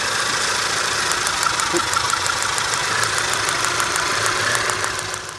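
2002 Hyundai Santa Fe engine idling with its spark plug wires misted with water, with sharp ticking about six times a second from about a second in. The ticks are the sound of the failing plug wires arcing across to the cylinder head and block, the cause of the engine's misfire and stumble.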